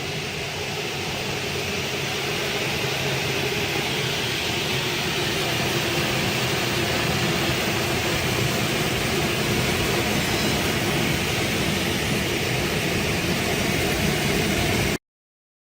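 Double-head aluminium cutting saw with 550 mm blades running, a steady whirring noise that cuts off suddenly near the end.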